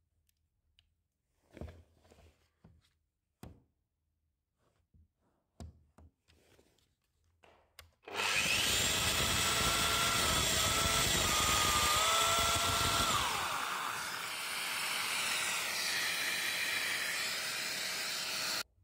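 A few light clicks and knocks while a Festool Domino XL DF 700 joiner is set against a softwood beam, then about eight seconds in its motor starts and runs loudly as it plunge-cuts mortises, the whine shifting in pitch under load. The sound cuts off suddenly near the end.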